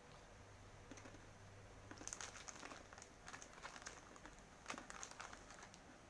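Faint crinkling of a plastic snack wrapper, in two short spells about two and five seconds in.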